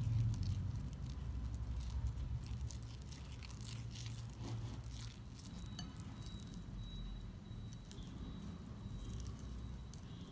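Thick chocolate brownie batter being stirred and folded in a glass bowl with a whisk and then a silicone spatula: irregular wet squelching and scraping, busiest in the first half, over a low hum. A faint steady high tone comes in about six seconds in.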